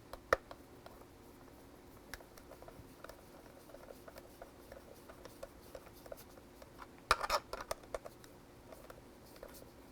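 Small clicks, taps and scrapes of the plastic Kraft KC3 joystick housing and parts being handled and fitted back together: a sharp click just after the start and a cluster of clicks and rattles about seven seconds in.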